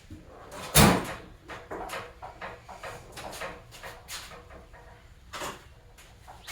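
Rummaging through a toolbox: a loud knock about a second in, then scattered clicks and rattles of handled parts and drawers, with another louder knock past five seconds.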